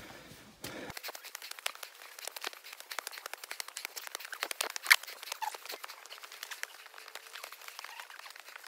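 Footsteps crunching and rustling through dry fallen leaves while climbing steep trail steps, an irregular run of crackles with a louder crackle about five seconds in.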